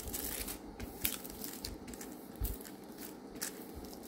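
Clear plastic protective film on a diamond painting canvas crinkling and crackling in irregular strokes as hands rub it flat, pushing out the air bubbles trapped between the film and the canvas.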